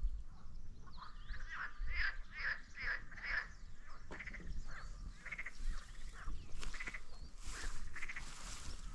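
Animal calls outdoors: a quick run of short repeated notes, about two to three a second, then scattered single calls and a few chirps.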